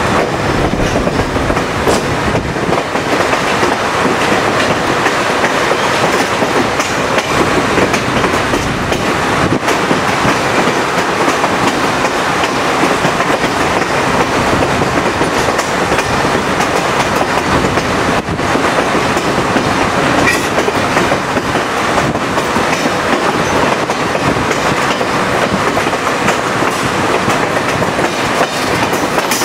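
Chepe passenger train running along the track, heard from one of its coaches: a loud, steady rumble and rush of the wheels on the rails, with a few faint clicks now and then.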